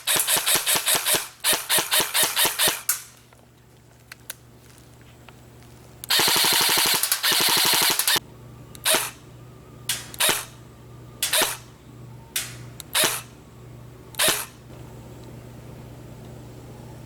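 Custom M4 airsoft electric gun firing: rapid full-auto bursts for the first three seconds, then a two-second full-auto burst about six seconds in, followed by about seven single semi-auto shots spaced roughly a second apart.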